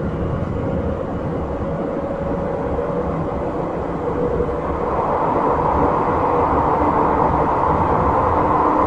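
Izukyu 8000 series electric train running: a steady rumble of wheels on rail and the running gear, with a faint steady tone from the motors. About halfway through a brighter hiss comes in and the sound grows louder.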